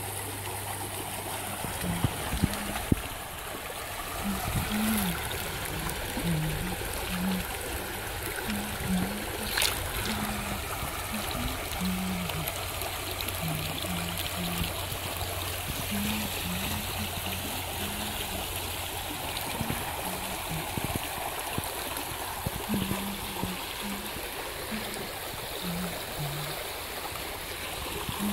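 Shallow river rushing and gurgling steadily over stones and riffles. Quiet background music plays a low melody of short stepping notes underneath, and there are a couple of brief knocks a few seconds in.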